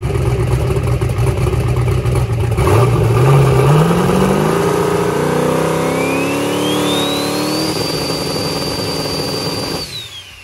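Turbocharged 364-cubic-inch small-block Chevrolet V8 with a Forced Inductions GTR 102 turbo, revved up and held while the turbo spools, the turbo just singing: a high whine climbs and then holds steady over the engine. Near the end the throttle closes, the engine drops off and the turbo whine winds down.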